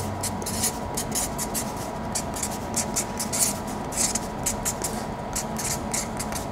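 Rapid, irregular scraping strokes, several a second, over a steady hum.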